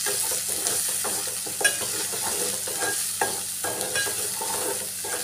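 Onions, ginger-garlic paste and turmeric frying in oil in a metal pot, sizzling steadily while a steel spoon stirs and scrapes the pot in irregular strokes: the masala base being sautéed before the meat is added.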